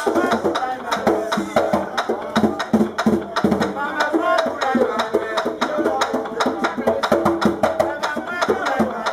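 Danmyé music: a bèlè hand drum beaten in a fast rhythm with many sharp strikes, under a voice singing.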